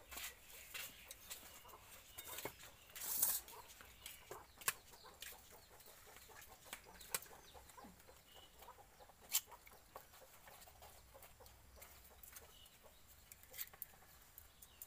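Raw eggs being cracked against and into a steel bowl: scattered sharp clicks and knocks, with a short rustle about three seconds in. Chickens cluck faintly in the background.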